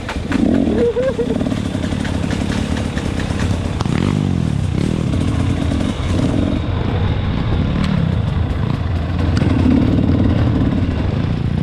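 Trail motorcycle engine running and revving up and down repeatedly as the bike is ridden off-road.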